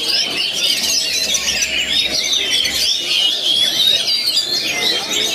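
Several oriental magpie-robins (kacer) singing at once in a dense, overlapping chorus of whistles and trills that runs without a break.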